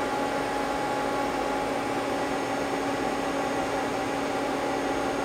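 Steady hum and hiss of a powered-on CNC lathe standing idle, with one steady low tone and no cutting.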